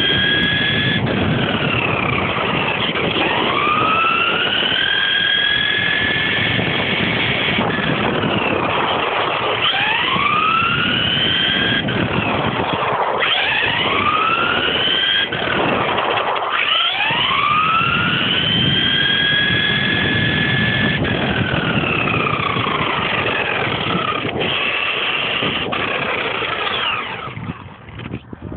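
Tamiya Blazing Star RC buggy's electric motor and gears whining, recorded from on board the car: the whine rises in pitch again and again as the buggy accelerates, over rough tyre-on-tarmac noise. Near the end the whine falls away as the car slows.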